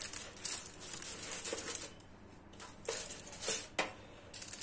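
A knife cutting through the crisp baked crust of a Turkish pide in a few short, irregular crunching strokes.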